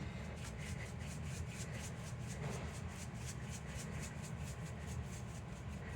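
Faint, quick, regular scratchy strokes as seasoning goes onto raw oxtails, over a low steady hum.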